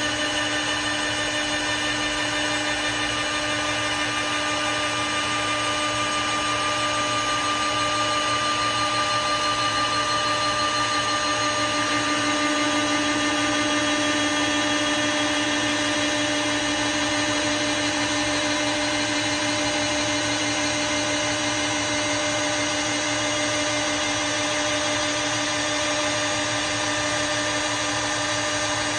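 CNC wood lathe's router spindle running steadily as it mills a wooden billiard cue blank: a steady whine over the noise of wood being cut, swelling slightly about halfway through.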